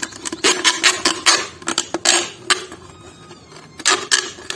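Knife cutting into a thin plastic drink bottle: a rapid, irregular run of sharp crackles and scrapes from the plastic, with a short quieter gap about three seconds in.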